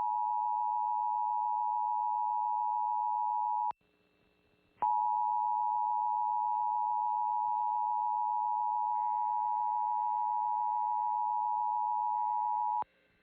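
Emergency Alert System attention signal for a tornado watch: a loud, steady two-tone alarm. It cuts off about four seconds in, then after about a second's gap sounds again for about eight seconds before stopping abruptly.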